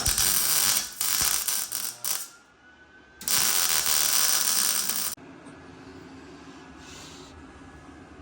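Angle grinder cutting into metal in two loud bursts. Between them its motor whine climbs back up in pitch as the load comes off, and the grinding stops about five seconds in.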